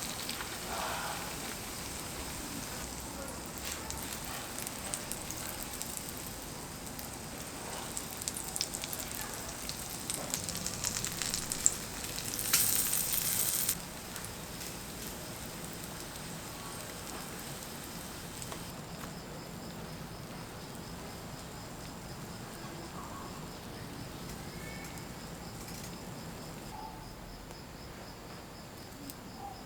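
Jeon pan-frying in oil: steady sizzling with many small crackles and pops, with a louder hiss for about a second midway. In the second half the frying is quieter and night insects chirp steadily in the background.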